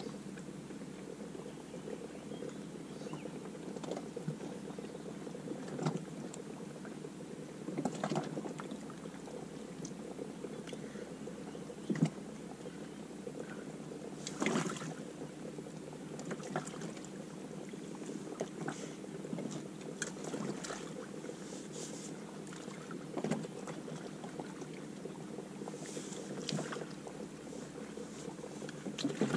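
Water splashing and lapping around a fishing kayak, with short irregular splashes and knocks every second or few seconds over a steady low hum.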